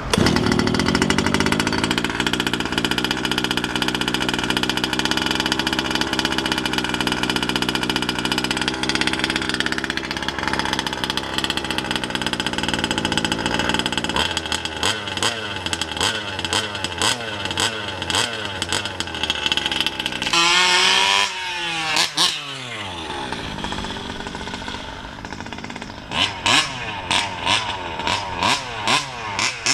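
The two-stroke gas engine of a Losi 5ive-T 1/5-scale RC truck running on its test drive. It runs steadily at first, then revs up and down, with one big rev just past the middle and a series of short throttle blips near the end.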